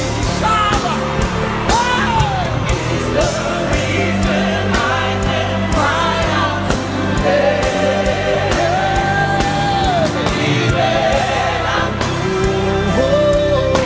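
Live gospel worship music: a singer carries a slow melody over a band with a steady beat, with shouts from the congregation.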